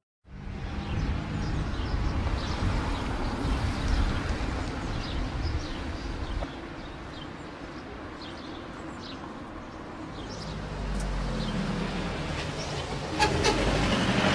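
Steady low rumbling background noise with faint short chirps and clicks scattered over it, growing louder near the end.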